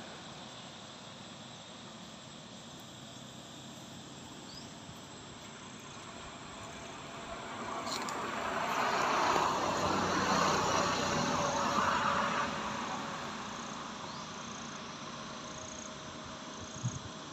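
Forest ambience of insects chirping and buzzing steadily, with a broad rushing noise that swells about seven seconds in and fades away a few seconds later.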